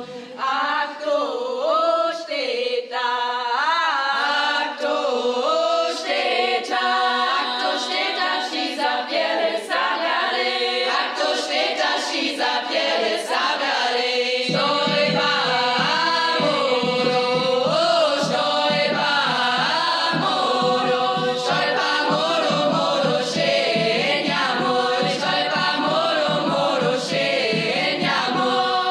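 A choir of young women singing a folk song, unaccompanied at first; about halfway through, a hand-held frame drum struck with a beater joins with a steady beat under the voices.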